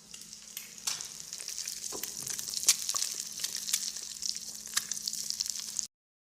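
Fish frying in hot oil: a steady sizzle with frequent sharp crackles and pops, which cuts off suddenly near the end.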